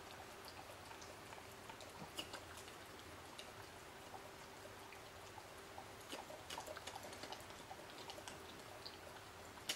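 A wolfdog's tongue lapping and slurping liqueur from a small glass: faint wet clicks and ticks scattered irregularly, over a thin steady hum.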